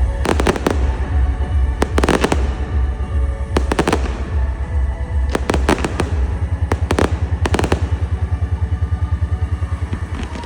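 Fireworks going off in several quick clusters of sharp bangs and crackles, over music with a heavy bass beat that speeds into a fast, even throb in the last few seconds.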